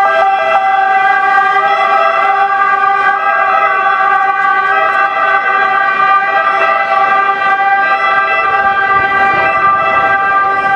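Italian ambulance siren wailing loudly and steadily, its pitched tones held level without a rising or falling sweep.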